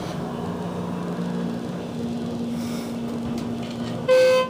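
Schindler hydraulic elevator running as the car goes up, a steady low hum from its pump motor. Near the end a short electronic beep sounds once.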